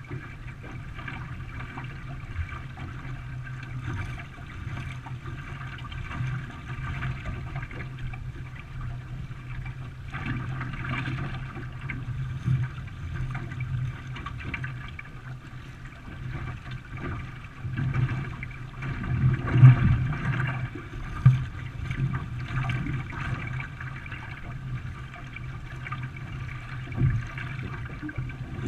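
Paddles stroking and water splashing and gurgling around a racing canoe, with two sharp thumps about two-thirds of the way through.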